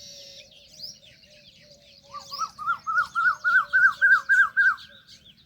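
Birds calling: a chorus of small, high chirps, over which one bird gives a rapid series of about a dozen arched notes, about four a second, growing louder before stopping near the end.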